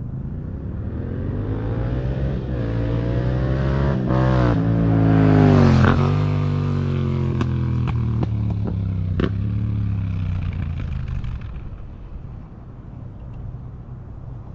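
Yamaha MT-07's parallel-twin engine through an Akrapovič Racing Line exhaust with the baffle in, as the bike accelerates past. The pitch climbs as it approaches and drops sharply as it passes about six seconds in, with a few sharp cracks. The sound then fades away.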